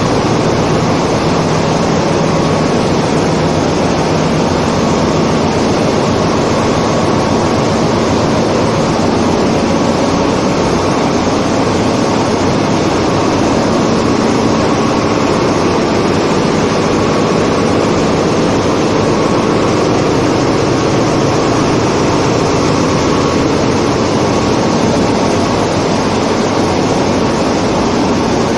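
Ship's engine room din: the large diesel engines and surrounding machinery running, a loud, unchanging drone.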